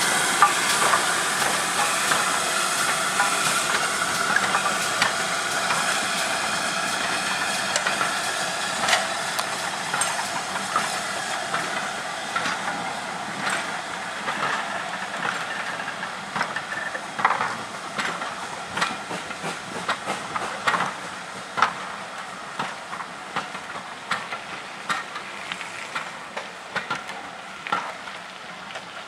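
GWR 42xx class 2-8-0 tank engine moving off with its train, steam hissing steadily around its cylinders. The hiss slowly fades as it draws away, and from about halfway through sharp clicks of the carriage wheels over rail joints come through.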